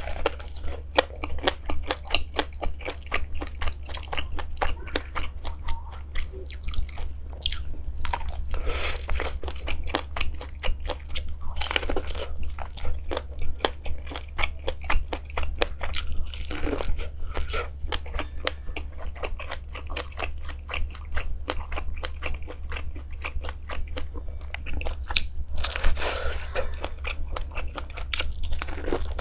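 Close-miked crunching and chewing of crisp food: a rapid, continuous run of crackles with a few louder bites.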